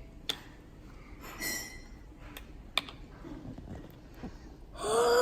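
A few light clicks and taps from handling a glitter glue bottle and bowl, with a short rustle about a second and a half in. Near the end a brief voiced exclamation is the loudest sound.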